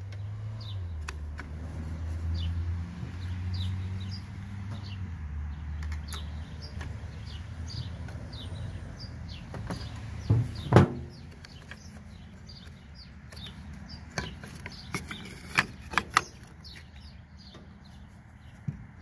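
A few sharp knocks and clinks of hand tools against metal mower parts, the loudest about ten and a half seconds in, while a bird chirps repeatedly in the background. A low hum runs for the first six seconds or so, then stops.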